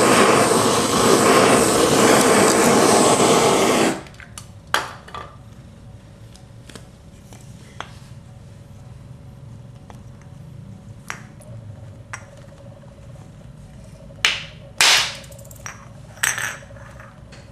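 Canister butane blowtorch hissing steadily as it heats the crankcase housing of an O.S. 46 AX II engine to expand it off the rear bearing, cut off abruptly about four seconds in. Then a few sharp knocks, the loudest around fifteen seconds in, as the hot housing is knocked against a wooden block to free the ball bearing.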